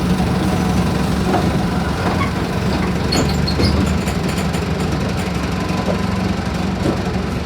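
Mercedes-Benz OF-1418 bus's diesel engine running with a steady low drone, with a few faint high-pitched chirps about three seconds in.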